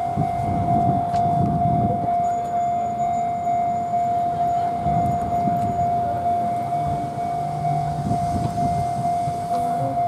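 Enoden level-crossing alarm ringing: a steady electronic bell tone that warns a train is coming. A low rumble of traffic and crowd runs underneath.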